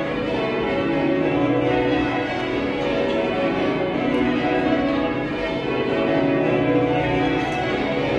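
The church bells of Bath Abbey being change-rung: a continuous, even run of strikes, each bell sounding in turn so the tones overlap and keep ringing on without a pause.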